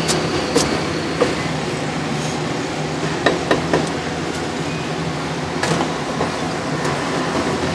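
A cleaver striking a thick round wooden chopping block now and then as meat and greens are chopped: a few sharp, irregular knocks, several close together midway, over a steady background din.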